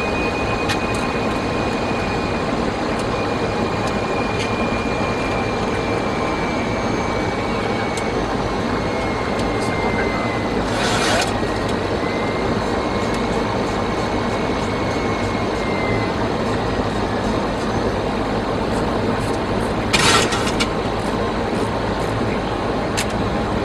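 Steady jet airliner flight-deck noise on approach: airflow and engines running, with a faint high whine that slowly drifts down in pitch. Two short hissing bursts come about eleven and twenty seconds in, the second the loudest.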